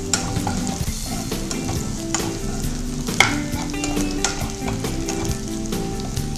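Sliced onions, green chillies and curry leaves sizzling in oil in a nonstick kadai, stirred with a metal ladle that scrapes and clicks against the pan, with one sharper knock about three seconds in. The onions are frying to a light brown.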